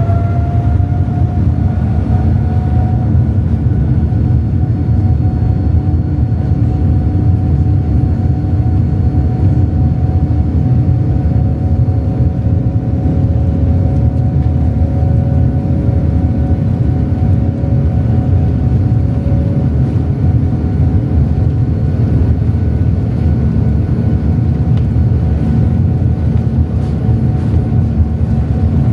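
Boeing 787-9's Rolls-Royce Trent 1000 engines at takeoff power, heard inside the cabin: a loud, steady rumble with a whine that finishes rising in the first second and then holds a steady pitch.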